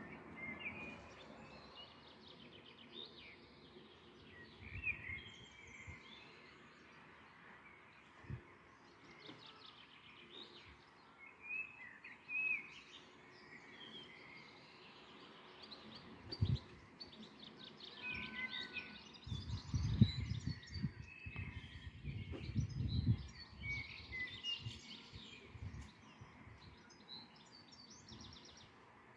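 Songbirds chirping and calling on and off, with a spell of irregular low rumbling and buffeting about two-thirds of the way through, the loudest part.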